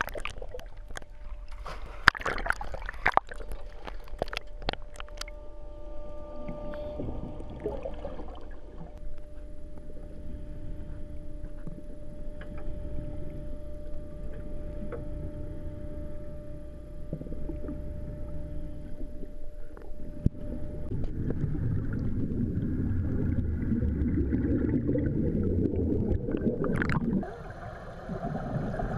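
Water splashing and crackling around a camera at the sea surface for the first few seconds, then the muffled sound of being underwater, with a steady faint tone running through it. About 21 seconds in, a louder low rumble builds and cuts off suddenly near the end.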